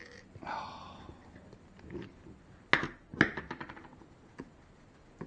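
Small hard parts clicking and tapping as they are handled by hand: two sharp clicks about two and a half and three seconds in, then a quick run of lighter ticks, with a soft rustle near the start.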